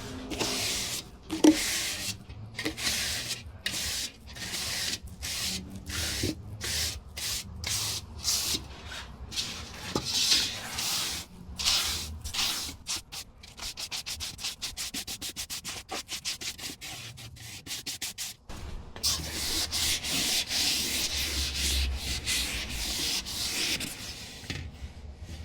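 Hand sanding on a 1930s studio light. The sandpaper rasps back and forth in separate strokes at first, then in quick short strokes, and near the end in one long steady rub.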